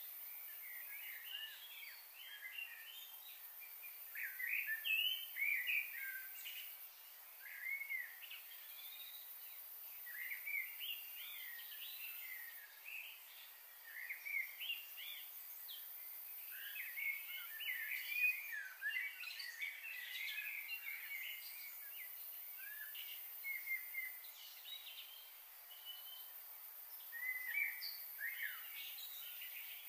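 Small birds chirping and chattering: many short, quick calls overlapping throughout, over a steady high hiss.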